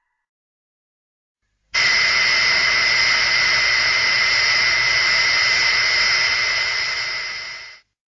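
Kumonga giant spider monster sound effect: a steady hiss with a high whistling tone. It starts abruptly about two seconds in and runs about six seconds before tailing off.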